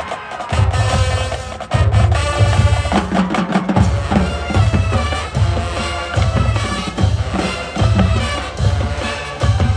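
Marching band playing: brass and woodwinds over a steady drumline beat with pounding bass drums, about two beats a second.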